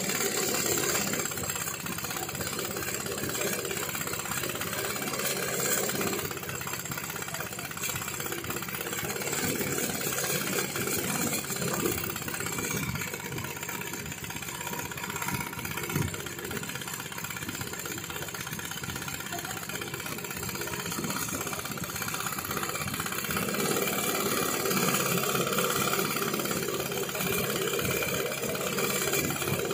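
Small engine running steadily at an even pitch: the generator that powers the fishing lamps over the net.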